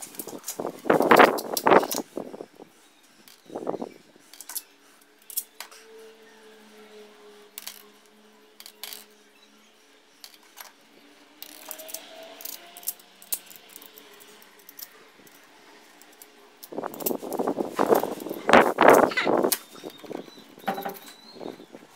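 Small steel bolts, nuts and screws clinking and rattling against each other as they are handled and set down on a tile floor. The clinking comes in clusters of quick clicks in the first two seconds, briefly at about four seconds, and again for several seconds near the end.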